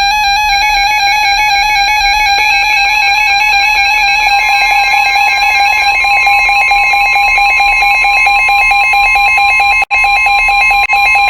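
Emergency Alert System attention signal: a loud, steady two-tone alarm (853 and 960 Hz) announcing a weather warning. It cuts out for an instant about ten seconds in.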